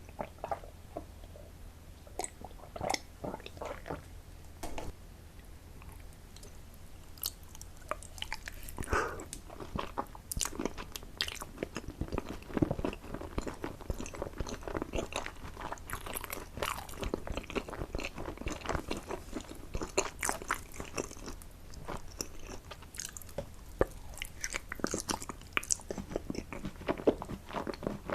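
Close-miked eating: a person chewing and biting food, with irregular clicks and crunches, sparse at first and busier from about eight seconds in.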